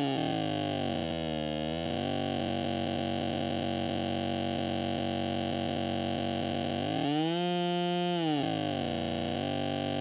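A circuit-bent late-1970s children's voice amplifier makes distorted, buzzy electronic tones while its touch points are held and its knob is turned. A drone of several pitches wavers briefly about a second in, and about seven seconds in the pitch sweeps up, holds, then falls back.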